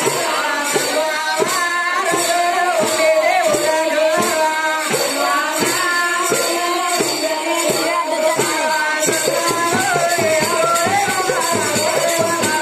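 Folk music: a singing voice over a steady, evenly repeating hand-drum beat with bright jingling percussion.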